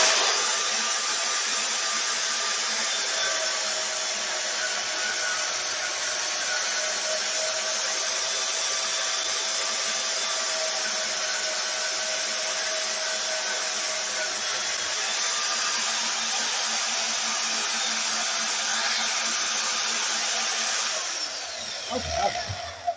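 Harbor Freight portable bandsaw (portaband) running and cutting through a bent metal exhaust tube, a steady whir with the blade rasping through the steel. Near the end the saw winds down and stops.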